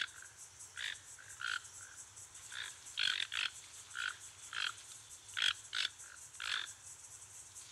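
Toucan giving short, frog-like croaking calls, about two a second at uneven intervals, over a steady high-pitched hiss.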